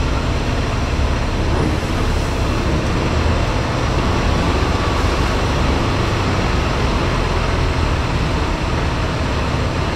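Semi-truck's diesel engine running with a steady low rumble as the tractor-trailer moves slowly.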